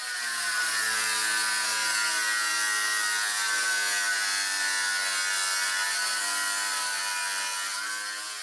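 Angle grinder with a cut-off disc cutting 3 mm aluminium sheet: a steady, high motor whine with a hiss from the cut, easing off slightly near the end.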